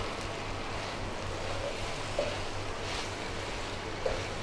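Okra masala sizzling gently in a metal kadai while a wooden spatula stirs it, with a couple of soft knocks of the spatula against the pan.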